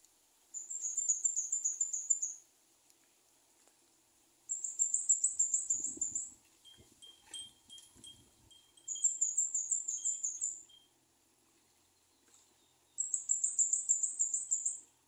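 A small bird singing four phrases of quick, very high-pitched chirps, each phrase about two seconds long and stepping down in pitch. In the middle, fainter lower single notes and a few faint low knocks come in between the phrases.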